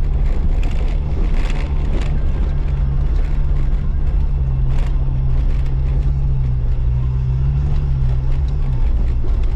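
Jeep Wrangler Unlimited engine running steadily under load as it crawls up a steep, rough dirt trail in four-high, its pitch dipping briefly near the end, with a few knocks and rattles over the rocks.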